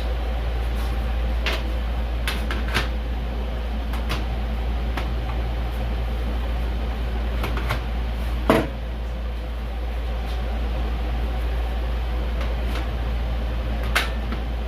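Clicks and knocks of computer parts and case panels being handled, over a steady low hum; one louder knock comes about eight and a half seconds in.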